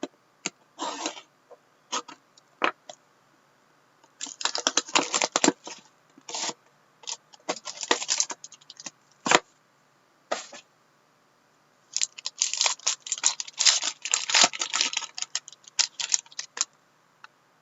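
A sealed trading-card box being opened by hand: bursts of crackly tearing and crinkling of its wrapper and packaging, with single sharp clicks in between.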